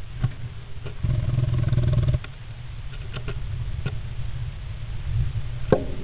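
Great spotted woodpecker moving about inside a wooden nest box: a few sharp clicks and scratches against the wood, with a louder stretch of rustling from about one to two seconds in, over a constant low rumble.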